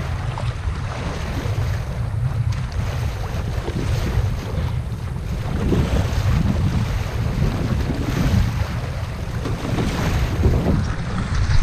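Wind buffeting the microphone over water washing and splashing against a sailing kayak's hull, a steady rumble that swells and eases with the chop.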